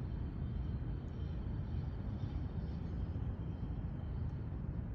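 Steady low rumble, like a vehicle running, with nothing else standing out.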